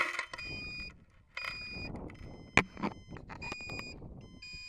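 A high-power model rocket's onboard recovery electronics beeping after landing: repeated half-second beeps, each at two steady pitches, with short gaps between. Rustling and a sharp knock come from the body tube being gripped and handled.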